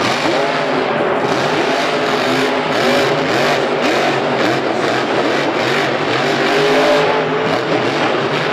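Grave Digger monster truck's supercharged V8 revving hard, its pitch rising and falling over and over in quick arcs.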